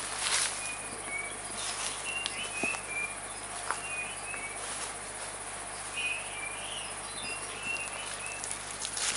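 Woodland ambience: a steady high insect hiss with short, high chirps scattered through it, and a few brief crackles of dry leaf litter.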